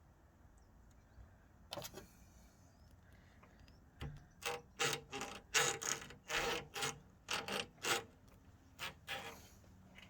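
Pliers working a spring hose clamp off a car radiator hose: a click about two seconds in, then a quick run of about a dozen short scraping, squeaky rubs of metal against metal and rubber.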